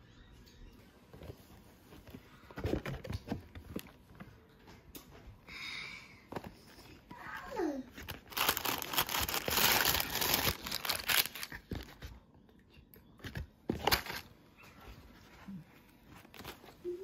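Cardboard takeaway boxes and their paper liners being opened and handled: crinkling and rustling of paper, loudest in a stretch about halfway through.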